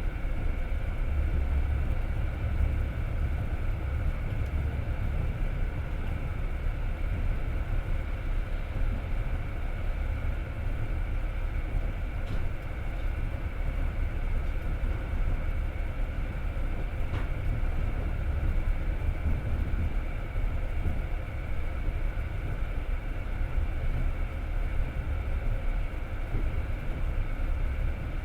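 Passenger train running along the track, a steady low rumble of wheels on rail heard from inside the carriage, with two faint clicks in the middle.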